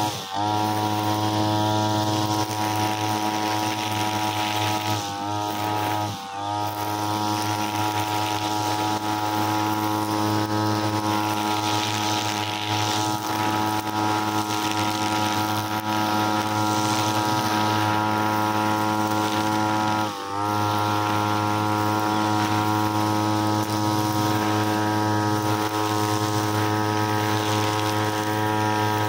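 Backpack brushcutter engine running at high revs while cutting grass, the revs dropping briefly about four times as the throttle is eased and then coming straight back up.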